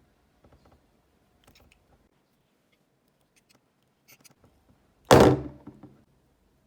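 A few faint small clicks, then one loud, sudden thunk about five seconds in that dies away within a second.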